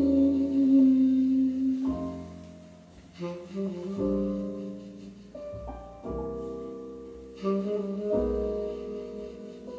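Instrumental music from a CD played quietly through a Sansui AU-777A amplifier and loudspeakers, with held notes and low bass notes entering every second or two.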